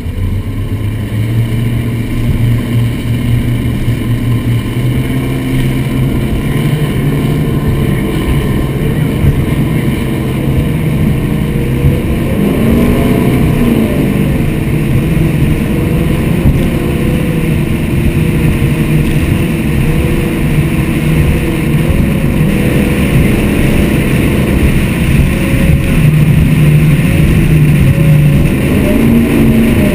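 Mercury Marine engines of a Motion Powerboats 43GT catamaran running hard at cruising speed, heard with the rush of water and spray along the hull. The engine pitch climbs over the first few seconds, then holds with brief wavers about twelve seconds in and near the end.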